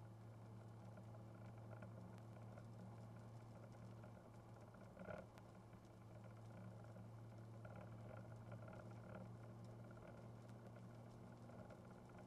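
Faint steady drone of a car driving, heard from inside the cabin, with light scattered patter of rain and a brief louder knock about five seconds in.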